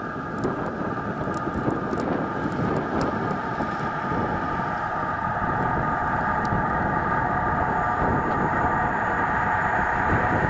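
Class 43 HST power car approaching at high speed, its diesel engine and steady high whine growing louder as it nears.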